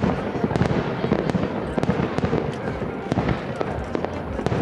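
Aerial fireworks going off in rapid succession: a dense, continuous run of bangs and crackling over a low rumble, heard from about a kilometre away.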